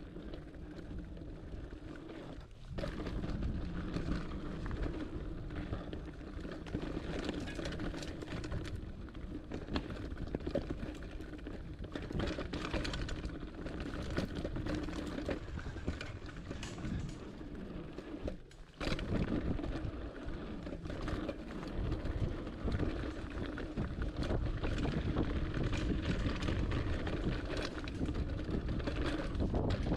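Hardtail mountain bike riding down a rocky dirt trail: tyres rolling over dirt and stones, the bike rattling and knocking over bumps, with wind noise on the microphone.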